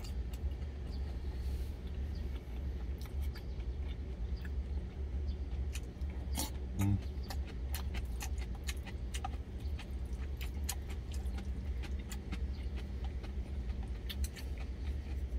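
Eating sounds: chewing and mouth noises with scattered light clicks of chopsticks and a spoon against a stainless steel lunch container. A steady low rumble from the truck's idling engine runs underneath.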